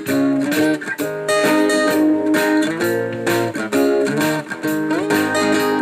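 Instrumental music led by a strummed acoustic guitar playing chords with a steady beat.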